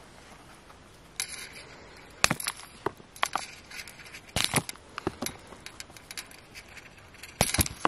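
Fingers breaking apart a wet, crumbly dig-kit block on a paper plate. A scratchy rustle comes about a second in, then a run of sharp cracks and crunchy clicks as chunks snap off, with the loudest near the middle and near the end.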